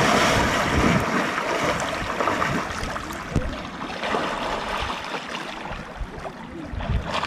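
A person diving headfirst into shallow lake water with a big splash. Then comes a steady wash of water sloshing as the disturbed surface settles.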